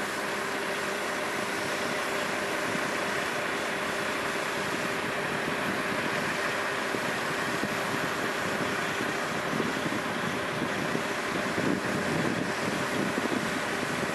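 Heavy diesel engines idling steadily: a Freightliner semi's 435 hp Detroit diesel along with a farm tractor's engine. The hum grows a little louder in the last few seconds.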